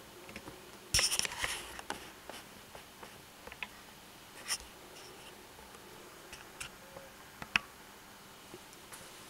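Quiet, scattered small clicks and ticks, with a short burst of scraping and rattling about a second in and one sharp click near the end.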